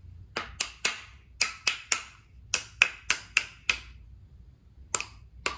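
Small hammer tapping the new Bakelite lower handguard and its retaining clip into their seat on a VZ58 rifle: about a dozen sharp, light taps in short runs, with a couple more near the end.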